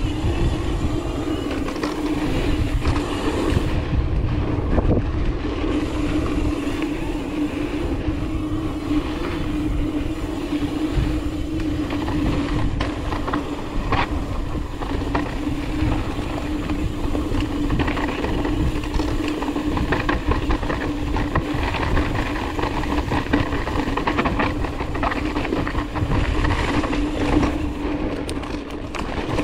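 Ibis Mojo 4 mountain bike rolling at speed: a steady hum from the wheels runs throughout, with wind rumble on the camera microphone and scattered clicks and rattles from the bike.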